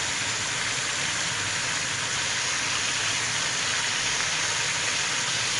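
Desi chicken pieces in onion, tomato and spice masala sizzling in oil in a cooking pot during the bhuna (frying) stage, a steady, even frying hiss.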